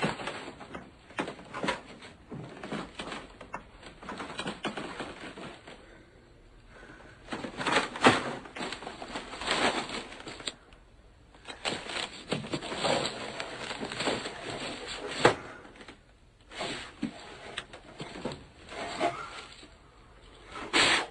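Boxes and gift wrapping being handled and rummaged through: irregular rustling with sharp clicks and knocks, the loudest knocks about a third of the way in, about three-quarters of the way in, and just before the end.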